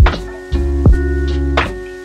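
Lo-fi hip-hop background music: a steady drum beat over held chords and a bass line.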